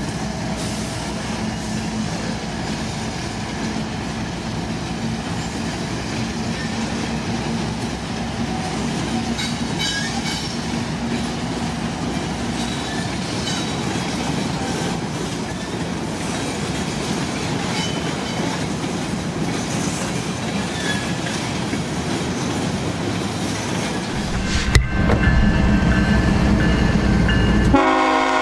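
Diesel freight locomotives and coal cars rolling past, with a steady engine drone and rail noise. About three and a half seconds before the end the sound jumps to a heavier low rumble, and near the end a locomotive air horn starts sounding a chord.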